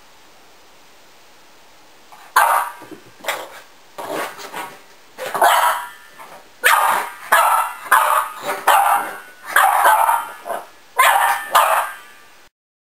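Boston Terrier puppy barking at an exercise ball: a rapid run of sharp, high barks, about two a second. The barking starts a couple of seconds in and cuts off suddenly near the end.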